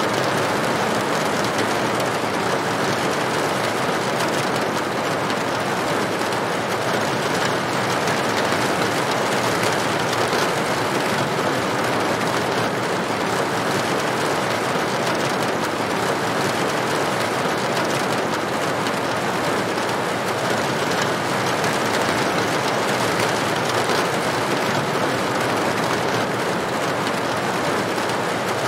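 Steady rain falling on a corrugated tin roof: an even, unbroken patter of many drops.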